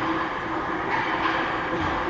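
Ice hockey rink ambience: a steady rushing noise of play on the ice, with faint swishes of skates and a low steady hum under it.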